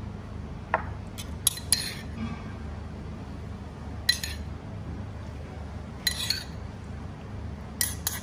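Metal spoon clinking against a ceramic bowl while stirring a dipping sauce: a few sharp clinks in the first two seconds, one about four seconds in, a couple around six seconds, and a quick cluster near the end.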